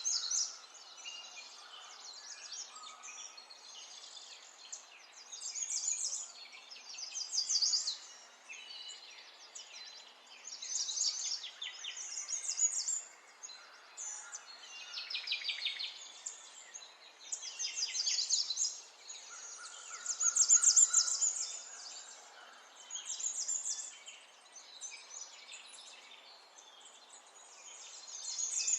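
Birds singing: bursts of rapid chirping trills that recur every two to three seconds over a faint steady hiss.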